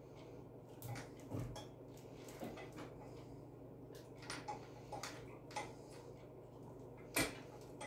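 Scattered light clicks and taps of hardware being handled as a solid rubber wheel is fitted by hand to a steel leg of a chicken plucker stand, with one sharper knock about seven seconds in.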